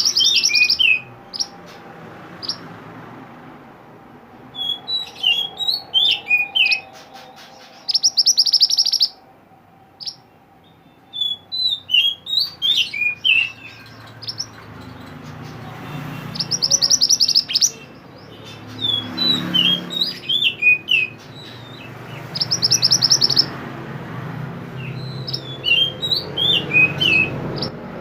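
Mantenan songbird singing in repeated bouts every few seconds. Each bout is a run of quick, sharp chirps and a rapid buzzy trill, in full, vigorous song.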